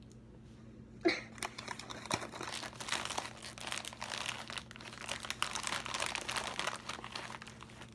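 Plastic chip bag crinkling and rustling as a hand rummages inside it to pick out a chip, starting about a second in and going on in a dense, irregular crackle until near the end.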